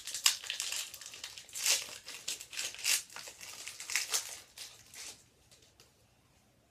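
Plastic foil wrapper of a 2013-14 Score hockey card pack being torn open and crinkled in the hands, crackling in bursts for about five seconds, then stopping.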